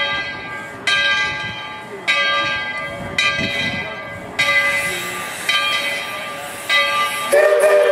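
Tweetsie Railroad No. 12 steam locomotive's bell ringing steadily, about one ring a second, each ring dying away before the next. Near the end its steam whistle starts to blow, a chord of several steady tones.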